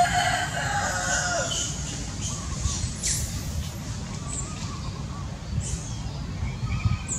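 A rooster crowing once: a drawn-out call of about a second and a half at the very start that drops in pitch at its end. A steady low rumble runs underneath throughout.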